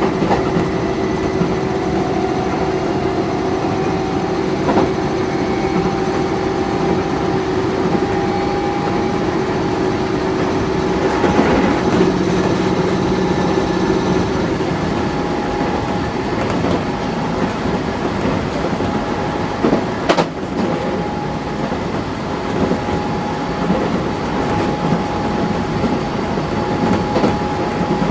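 Keisei 3400-series electric train heard from inside the car while running at speed, with steady wheel-and-rail noise. A whine slowly rises in pitch over the first ten seconds, and a single sharp clack comes about twenty seconds in.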